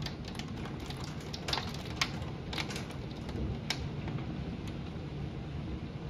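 Storm wind rushing steadily in heavy rain, with scattered sharp ticks of driving rain striking a hard surface near the microphone. The ticks are thickest in the first four seconds.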